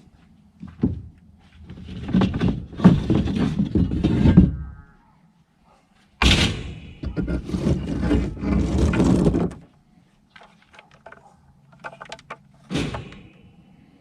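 Junk being handled at a curbside pile: two long bouts of clattering and scraping, with a few separate knocks and thunks after them.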